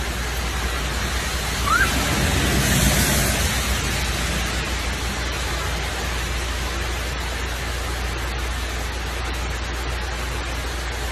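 Steady rain falling, an even hiss of rain on a wet wooden deck and its surroundings. A short rising squeak comes about two seconds in, and the hiss swells briefly just after it.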